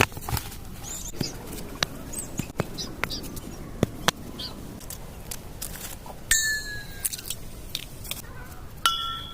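Scattered light clicks and knocks of kitchen utensils as a bread omelette is prepared. A few short high-pitched tones sound among them, a louder one falling in pitch about six seconds in and another near the end.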